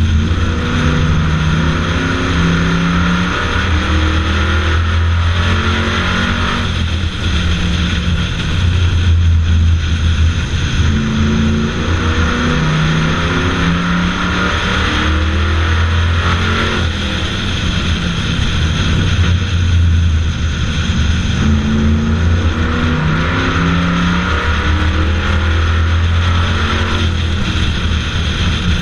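Bomber-class stock car's engine under race power, heard from a camera on the hood. Its pitch climbs in steps for a few seconds, then drops, and climbs again, again and again, over a constant rush of wind across the hood.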